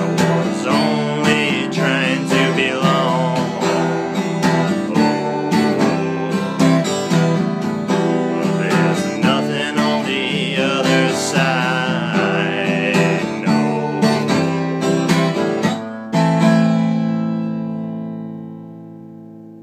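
The closing bars of a song on strummed acoustic guitar, with a wavering higher melody line above. About three-quarters of the way through, a final chord is struck and left to ring, fading away.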